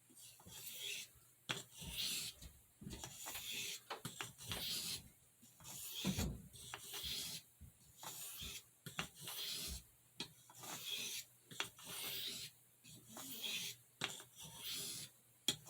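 Pocketknife blade stroked over a soft Arkansas sharpening stone: a steady series of short rasping strokes, about one to two a second, light passes that take off the burr. About six seconds in there is a single duller bump.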